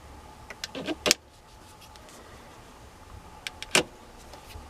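Sharp clicks and knocks from the steering-column switch assembly being worked by hand: a short cluster about a second in and another near the end.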